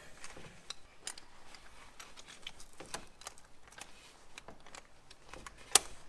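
Scattered small metal clicks and clinks of a Crow racing harness's belt ends being hooked into the lap latch buckle, with one sharper click near the end.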